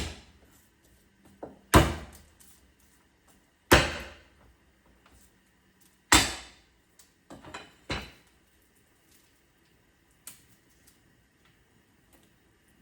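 Garlic cloves being smashed with the flat of a kitchen knife: four loud whacks about two seconds apart, then a few lighter knocks around eight seconds in and one more near ten seconds.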